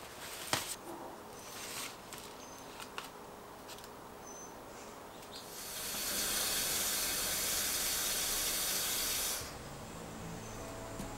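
Water running from a kitchen faucet, an even hiss lasting about three and a half seconds from about six seconds in. Before it come faint rustling of plastic wrapping and a single sharp knock.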